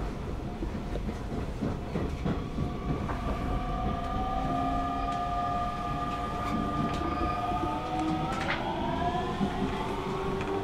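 Hanshin electric commuter train running, heard from inside the carriage: a steady rumble of wheels on rail with scattered clicks over rail joints. A motor whine sits over it and starts to rise in pitch near the end.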